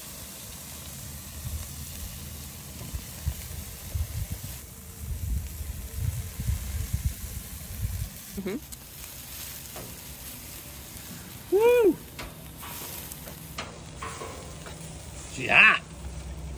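Spatchcocked chicken sizzling on a hot charcoal grill grate, a steady hiss with crackling. Two short vocal sounds from a person stand out louder near the end.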